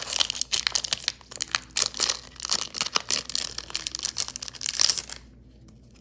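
Foil booster-pack wrapper crinkling and crackling as it is torn open and handled: a dense run of rapid, irregular crackles that stops about five seconds in.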